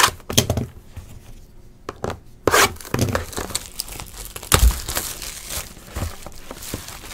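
Clear plastic shrink wrap being torn and crinkled off a sealed box of trading cards: irregular crackling, with a few sharper snaps as it rips.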